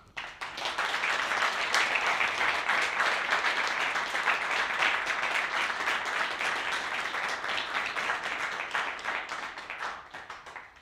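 Audience applauding: many hands clapping, starting suddenly, swelling within the first second, then thinning out and fading near the end.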